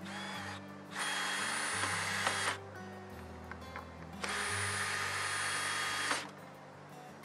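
Cordless drill driving screws through a wooden bracket into the end of a pine log: a short run at the start, then two longer runs of about one and a half and two seconds. Background music underneath.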